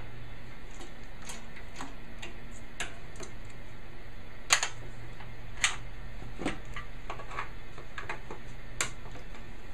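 Irregular light clicks and taps of small metal parts and hand tools being handled, with two sharper clicks about a second apart near the middle.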